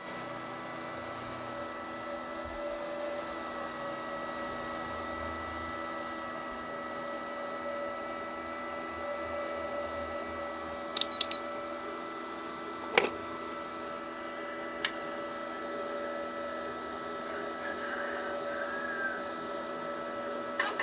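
Steady electrical machine hum with several constant whining tones, broken by a few sharp clicks about halfway through.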